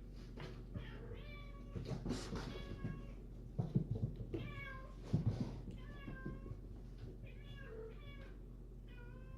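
Kitten mewing over and over in short high-pitched calls, about one a second, with a couple of low bumps in the middle.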